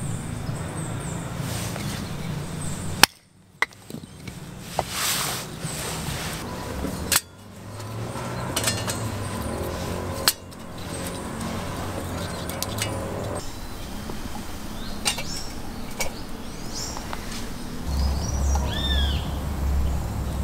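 Steel knife blade shaving a stick of dry wood, then thin kindling sticks being pushed into a small folding steel stove, with a few sharp knocks along the way. A bird chirps twice near the end.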